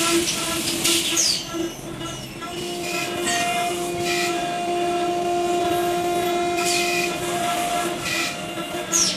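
CNC turret drilling and tapping machine running: a steady machine whine of several held tones, with short hissing bursts every second or two.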